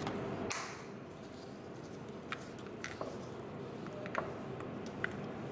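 Faint handling noise of a small clear plastic case of airflow inserts: a short rustle about half a second in, then a few sharp little clicks and taps of plastic and tiny metal inserts between the fingers.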